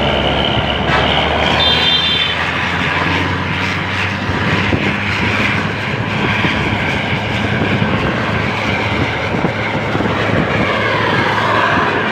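Vehicle driving on the road: a steady engine hum under road and wind noise, with a brief high tone about two seconds in.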